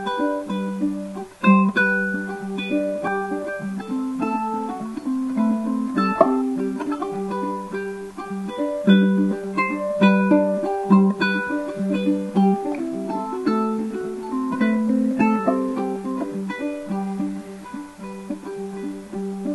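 Solo ukulele playing an instrumental introduction: a melody of separately plucked notes ringing over chords, at an unhurried pace.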